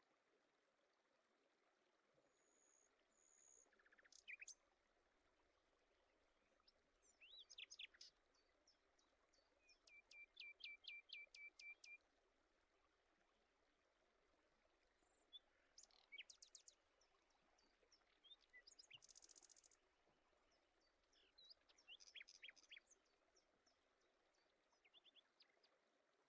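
Faint birdsong: several birds chirping and whistling in scattered short bursts, with a fast, even trill about ten seconds in, over a faint steady hiss.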